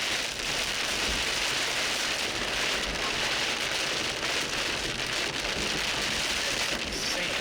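Heavy rain beating on a car's roof and windshield, heard from inside as a dense, steady hiss.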